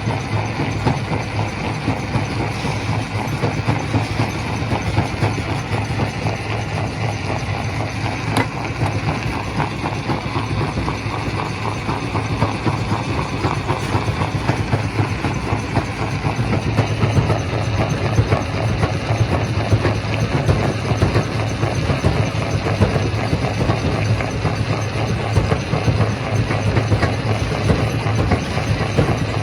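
Primary rock crusher running under load: a steady low mechanical hum under a dense, irregular clatter of rock being broken and tumbling through the machine.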